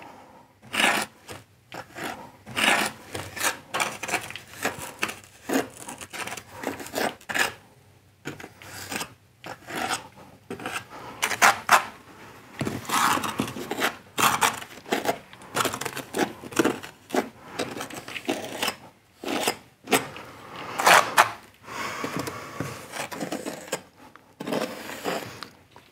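Steel joint iron scraping gritty sand-cement joint mortar off a joint board and pressing it into the joints between brick slips: a run of irregular, rasping scrapes.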